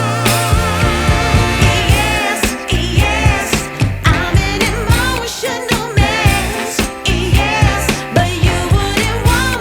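Background music with a steady beat, bass and a singing voice.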